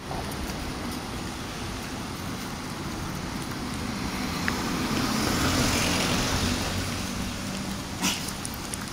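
Urban street traffic noise, with a car passing that swells to its loudest about halfway through and fades again. A single short click near the end.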